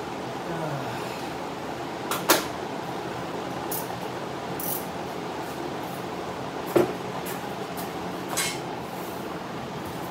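Large drum shop fan running with a steady whir, with a few sharp metallic clicks and knocks from hand work in the open engine bay, the loudest about two seconds in and near seven seconds.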